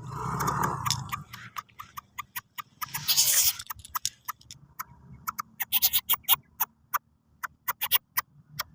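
Lesser coucal making odd sounds: a fast, irregular run of sharp clicks, with a short hiss about three seconds in.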